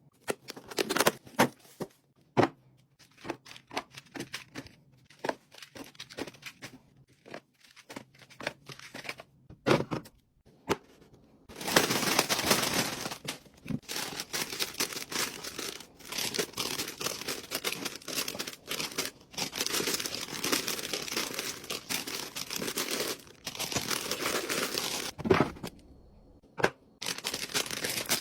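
Packaging being handled in a restock: a run of separate sharp clicks and taps as items are set down, then about twelve seconds in a long stretch of continuous crinkling and tearing of packaging, pausing briefly near the end before it starts again.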